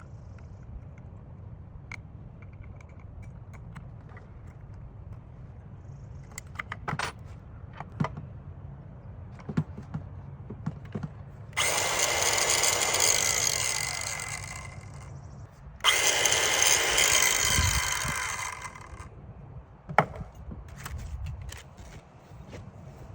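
Ryobi 18V ONE+ 4-1/2" cordless circular saw making two cuts through wood, each about three seconds long, the motor's whine tailing off at the end of each cut. A few knocks and clicks of handling wood and the saw come before and between the cuts.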